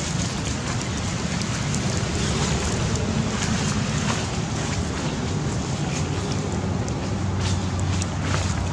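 Steady wind buffeting the microphone: a low rumble under an even hiss, with a few faint short rustles near the end.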